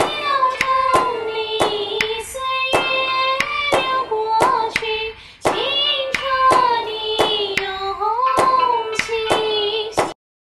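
Song with a high voice singing long, sliding notes over a sharp clap-like beat about three times a second. The music cuts off suddenly about ten seconds in.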